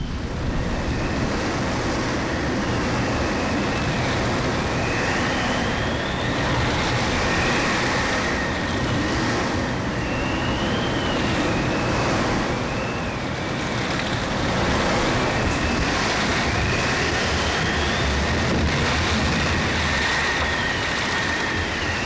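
Cyclone storm wind blowing in a steady heavy rush, with a high whistle that rises and falls every few seconds.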